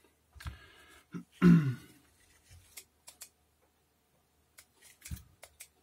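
An amplifier circuit board being handled and turned over by hand on a cloth towel: soft rustling and a few light clicks and taps, with a short, loud vocal noise from the person about one and a half seconds in.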